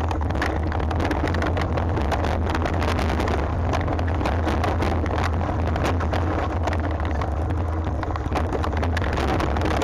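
Mountain bike riding down a rough dirt trail: a steady low wind rumble on the microphone, with constant irregular rattling and clicking from the tyres and bike over stones and ruts.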